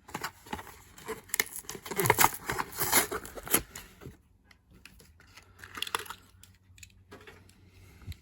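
Hot Wheels blister pack being torn open: cardboard card tearing and the plastic blister crinkling, busiest and loudest in the first half, then fainter handling sounds.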